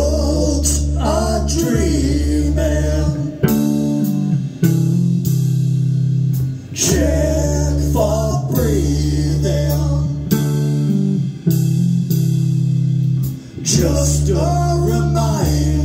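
Live band playing: an electric bass guitar holding long low notes that change every second or two, a Gretsch drum kit keeping the beat, and a man singing over them.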